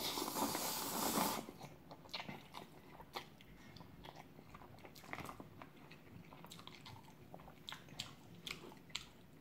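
A person slurping up a mouthful of chewy cream jjolmyeon noodles, a loud rush for about the first second, then chewing with scattered soft wet smacks and clicks.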